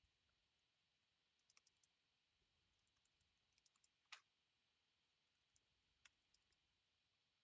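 Near silence broken by faint, scattered small clicks: a few at a time about one and a half and three and a half seconds in, a sharper single click about four seconds in, and two more near six seconds.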